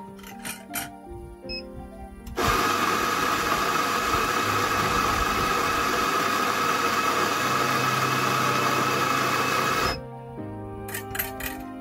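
Espresso grinder motor running and grinding coffee beans into a portafilter held under its spout: a loud, steady grinding noise that starts abruptly about two and a half seconds in and cuts off sharply after about seven and a half seconds.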